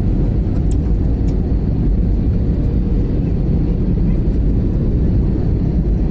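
Steady rumble of jet engines and airflow inside an airliner's cabin by the wing during the descent to landing, with a faint steady hum and a couple of faint clicks about a second in.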